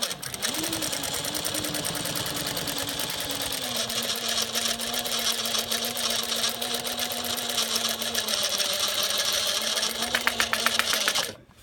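Juki DLN-415 industrial sewing machine running steadily, with rapid even stitch strokes and a steady whine from inside the machine head, around the stitch length dial and feed control lever, not from the servo motor or a rubbing belt. It stops suddenly near the end.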